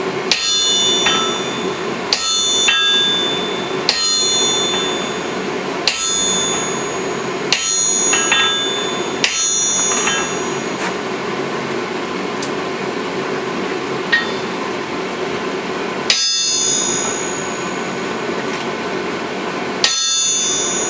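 Sledgehammer blows on a handled top tool held against red-hot steel on an anvil. There are about eight heavy strikes roughly every two seconds, with a pause of several seconds in the middle, and each blow rings briefly and metallically over a steady background hum.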